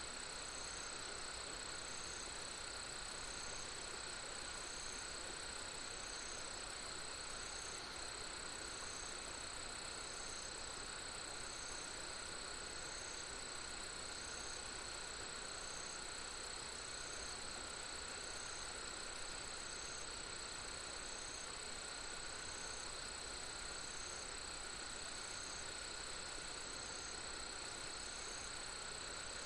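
Crickets and other insects trilling steadily: several unbroken high-pitched chirrs layered together, one of them pulsing about once a second, over a steady soft hiss.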